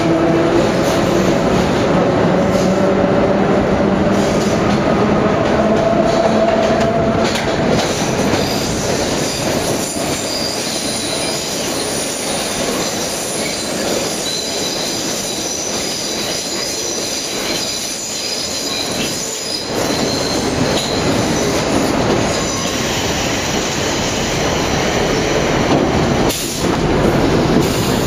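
Vintage Low-V subway train running through a tunnel: a steady rumble and rattle of wheels on track. A low whine runs through the first several seconds, and thin high-pitched wheel squeal comes in from about a third of the way through.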